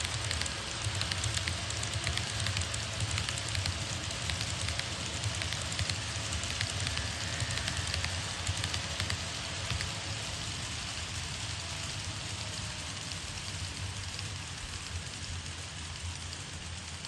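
HO-gauge model train rolling along the track: wheels running on the rails with a dense, rapid clicking over a steady low hum. It grows fainter in the second half as the train draws away.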